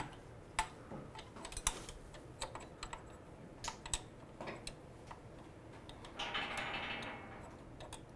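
Light clicks and taps of small metal parts as a BMW R90/6 steering damper rod is worked up into the steering head, with a brief scrape about six seconds in.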